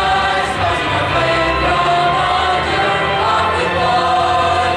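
A choir singing a sustained song over musical accompaniment.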